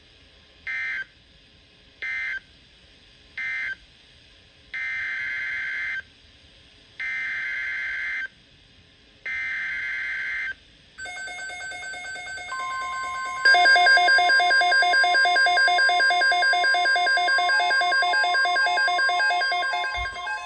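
Emergency Alert System SAME digital data tones, each a raspy two-pitch warble: three short end-of-message bursts, then three longer header bursts about a second apart, marking the end of one alert and the start of the next. After that a steady attention tone sets in, joined by a louder pulsing multi-tone alert sound.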